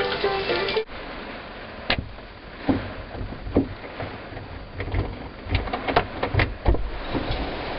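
Background music cuts off about a second in. Then hurricane wind buffets the microphone in rumbling gusts over a steady rushing noise, with scattered sharp knocks and clicks.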